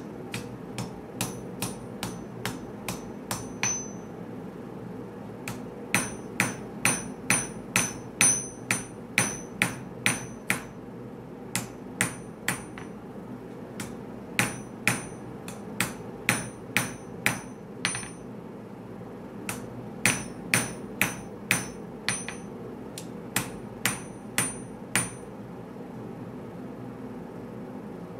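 Hand hammer forging a red-hot 1084 and 15N20 Damascus steel blade on a steel anvil: runs of quick blows, about two a second, with short pauses between runs. Each blow rings with a bright metallic ping, over a steady low rush underneath.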